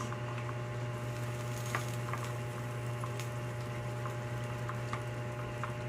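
Chicken adobo simmering in a pot: scattered small pops and bubbles over a steady low hum.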